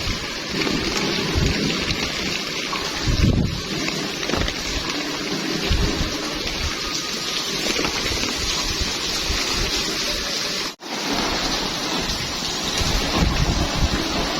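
Steady heavy rain, a dense hiss of falling water with irregular low rumbles underneath. It drops out suddenly for a split second about eleven seconds in, then resumes.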